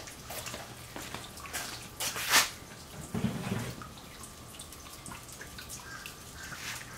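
Bacon fat sizzling and crackling as the bacon bowls cook on a muffin pan in an electric smoker, with irregular small pops and one sharper crack about two and a half seconds in.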